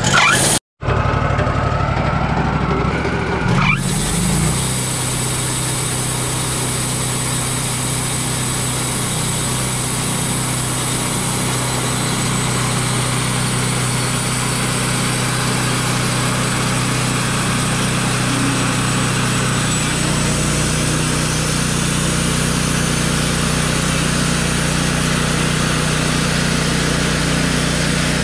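Wood-Mizer LT40 sawmill running steadily, its band saw blade cutting a 2-inch slab from a large pecan log, with the engine humming under load.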